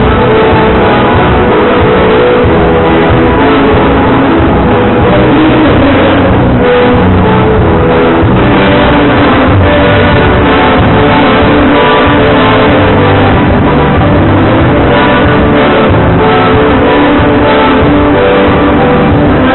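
Live band playing gaúcho dance music, loud and continuous.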